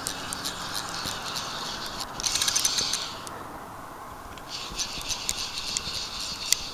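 Fly reel's click-and-pawl drag ratcheting rapidly as a hooked fish runs and pulls line off the spool, in three spells with the loudest about two seconds in.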